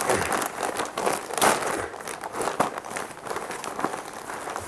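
Plastic mailer bag crinkling and rustling as it is torn open by hand, in a run of irregular crackles, loudest about a second and a half in.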